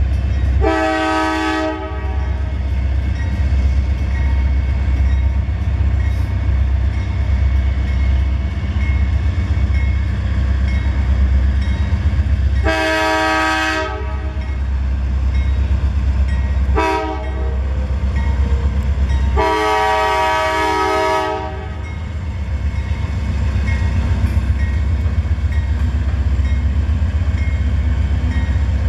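Diesel freight locomotive's multi-note air horn sounding the grade-crossing signal, long, long, short, long, warning of the train's approach to the crossing. Underneath is the steady heavy rumble of the locomotives' diesel engines as the train approaches and passes.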